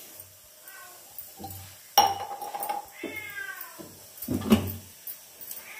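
Several drawn-out animal calls that fall in pitch, with a sharp knock or two of metal kitchenware in between.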